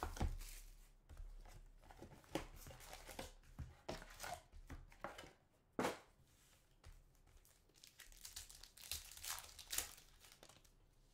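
Foil trading card pack crinkling and tearing as it is ripped open and the cards are slid out, with irregular crackles and one sharp click about six seconds in.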